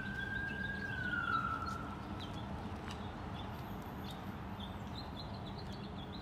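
An emergency vehicle's siren holds one steady tone, then falls away and fades out about two seconds in. Steady traffic hum runs underneath, with short high chirps throughout.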